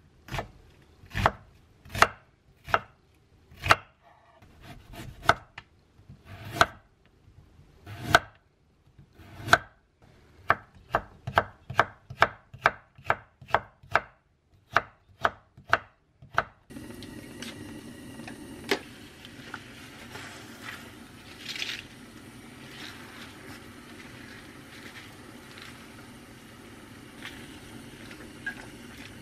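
Chef's knife chopping onion and then carrot strips on a wooden cutting board: sharp knocks, spaced out at first, then a quicker even run of about three strokes a second. About 17 seconds in it changes to the steady hiss of spinach blanching in a pot of hot water over a gas flame, with a few light clicks of wooden chopsticks turning the leaves.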